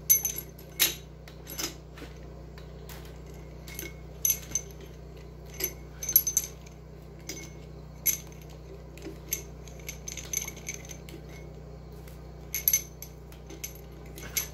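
Steel cylinder-head bolts and a socket extension clinking as the bolts are unscrewed and gathered into a hand: a string of irregular sharp metallic clinks, some with a brief ring. A steady low hum runs underneath.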